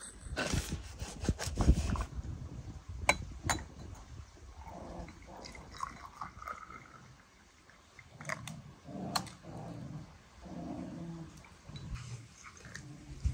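Several sharp glassy clinks of small tea glasses and saucers, and hot tea poured from a teapot into a glass.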